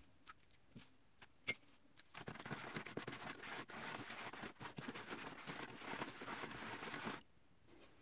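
A metal spoon stirring baking soda into water in a plastic tray: a stretch of swishing and scraping with many small clicks of the spoon against the tray, starting about two seconds in and stopping abruptly about a second before the end.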